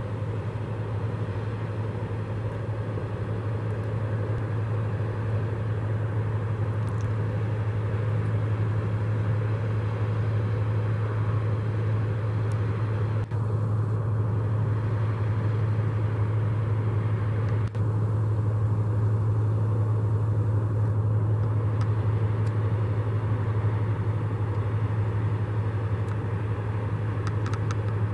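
Diesel engine of a passing motor cargo barge: a steady low drone with a noisy wash above it.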